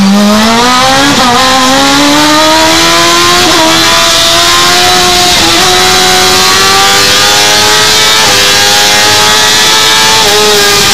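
Race car engine running hard at high revs, heard from inside the cockpit, its pitch climbing steadily as the car accelerates along a straight. The pitch dips briefly about five times along the way.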